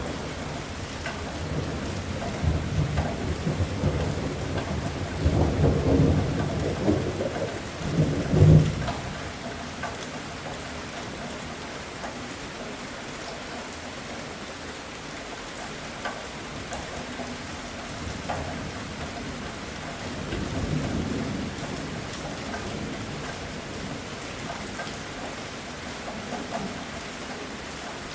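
Heavy rain falling steadily through a thunderstorm, with a long roll of thunder that builds and peaks with a sharp crack about eight seconds in, then a fainter rumble of thunder later.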